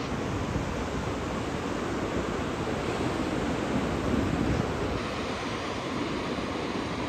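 Ocean surf breaking on a sandy beach, a steady wash that swells slightly about four seconds in, with some wind on the microphone.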